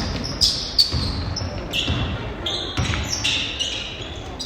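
Basketball game play on a gym court: sneakers squeaking sharply several times on the floor, with the ball bouncing and feet thudding, in an echoing hall.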